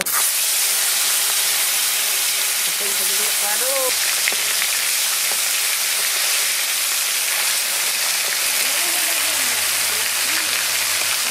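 Turmeric-coated fish pieces frying in hot mustard oil in a kadai: a loud, steady sizzle that starts suddenly as the fish go into the oil.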